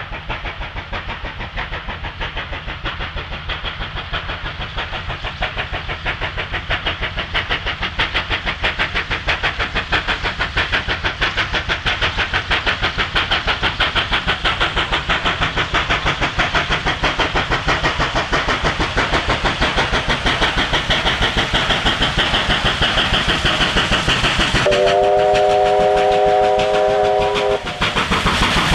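Steam locomotive 3801, a NSWGR 38 class two-cylinder 4-6-2 Pacific, working hard on approach: a rapid, even beat of exhaust chuffs that grows steadily louder as it nears. Near the end it gives one blast of about three seconds on its chime whistle, several notes sounding together, cut off sharply, while the exhaust beat carries on.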